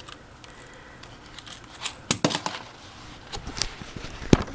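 Plastic toys on a baby's activity bouncer clicking and clinking as they are handled: a few scattered light clicks, a cluster about two seconds in and the sharpest knock near the end.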